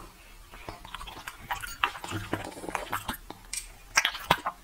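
A bulldog-type dog sniffing and snuffling at food, a string of short, irregular sniffs and wet snuffles.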